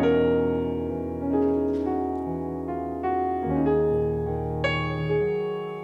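Yamaha MX88 keyboard playing slow, held piano chords over low bass notes, moving to a new chord every second or two.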